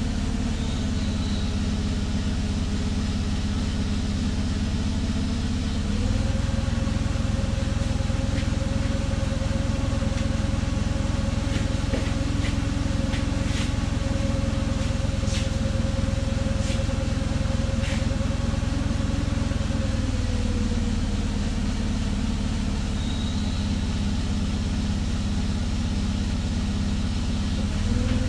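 Forklift engine running steadily, its speed stepping up about six seconds in and dropping back around twenty seconds, then rising again at the very end. A few light metal clinks in the middle.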